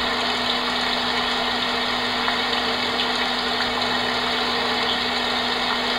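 Homedics SoundSpa Rejuvenate white noise machine playing its rain setting: a steady, even hiss of recorded rain with a faint low hum under it.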